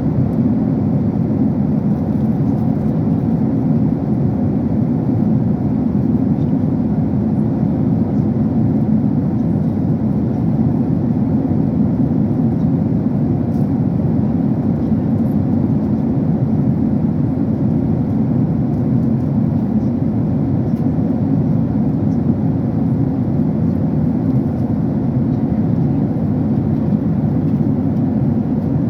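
Steady jet-engine and airflow noise inside an airliner cabin in flight, a dense, even low rumble.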